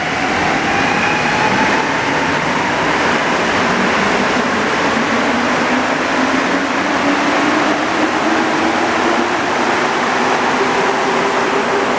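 Montreal metro rubber-tyred train running along the platform and speeding up, its motors giving a whine that rises slowly in pitch over a loud, steady rushing rumble.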